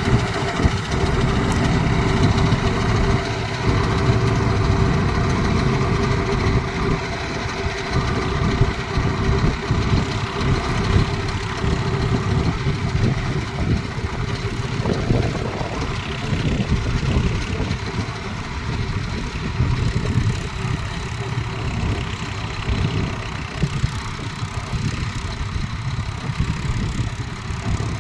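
Diesel engine of a harvesting machine running steadily during wheat harvest: a continuous low rumble with an even hum, no revving or stopping.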